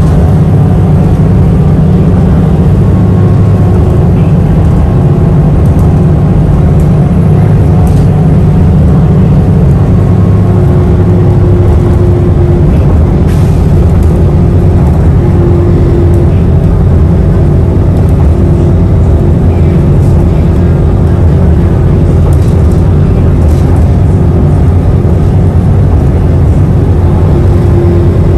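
City bus running at cruising speed, its engine and tyre noise a loud, steady rumble heard from inside the passenger cabin, with a faint steady hum on top.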